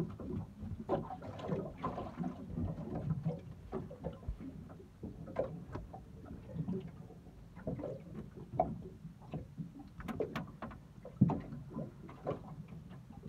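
Handling noises in a small fishing boat: irregular knocks, clunks and rustles against the hull and gear, with a sharper knock about eleven seconds in.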